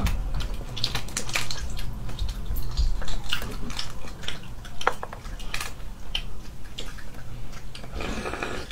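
Eggshell crackling and snapping as a cooked egg is peeled by hand, irregular small cracks and clicks with shell pieces tapping on a plate.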